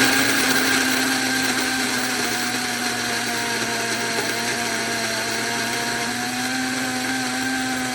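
SHARDOR electric blade grinder running steadily with its lid held down, its motor whining at a fixed pitch as the blades grind dehydrated cheese into powder. The pitch shifts slightly partway through.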